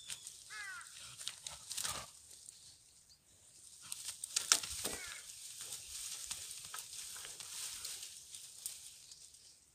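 Wild boar caught in a cable trap thrashing through dry leaves and brush: rustling and crackling that grows busier about four seconds in, as it struggles against the cable. There is a sharp snap about four and a half seconds in, and short falling calls near the start and around five seconds.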